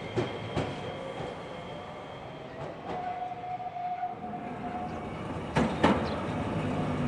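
Iyotetsu 5000-series tram pulling away over the points, its wheels clacking over the rail joints, with a thin steady whine and then a slightly rising tone from its running gear. Two more sharp wheel clacks come near the end.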